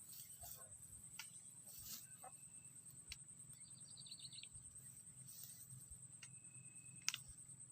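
Quiet swamp ambience: a steady high-pitched insect buzz throughout, a brief rapid bird chirping about four seconds in, and a few faint small clicks, one sharper near the end.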